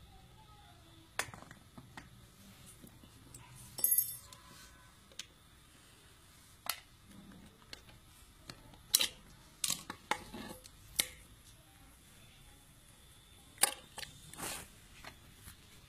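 Scattered metallic clicks and clinks from hand-casting lead fishing sinkers: the hinged sinker mould being opened and closed, and cast lead sinkers dropping onto a pile. One clink about four seconds in rings briefly.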